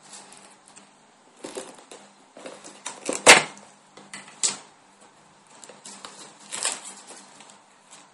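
Handling noise of a phone being unboxed: irregular taps, clicks and rustles of the handset, cardboard box and paper leaflet, with one sharp knock about three seconds in as the loudest sound.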